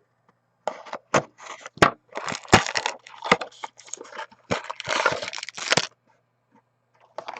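A sealed box of trading cards being torn open: its wrapping crinkling and tearing in irregular bursts of rustling and sharp cracks.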